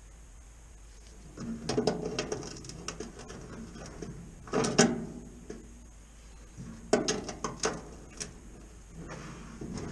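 Locking C-clamp pliers being adjusted and clamped onto the edge of a steel body panel: three bursts of sharp metallic clicks and clatter, about a second and a half in, around four and a half seconds, and around seven to eight seconds.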